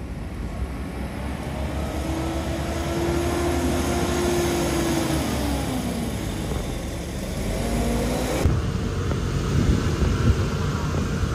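A motor vehicle's engine running past, its tone rising and then falling over a few seconds, over steady outdoor background noise.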